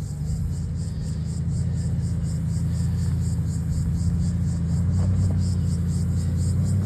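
Nissan Patrol Y62's V8 engine working under load with a steady low drone as the 4WD climbs a steep dirt track.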